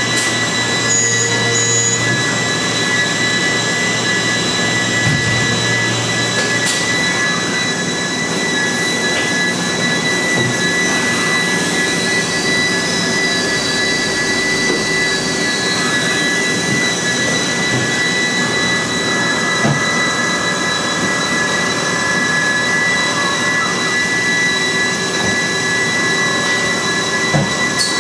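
Hardinge Quest 8/51 CNC turn-mill lathe machining a bar part under flood coolant: a steady spray and machine noise with a high, steady whine. Near the middle, a higher tone rises and falls once.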